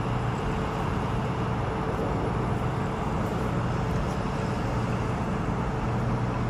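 Steady mechanical droning with a low hum, even in level and without breaks.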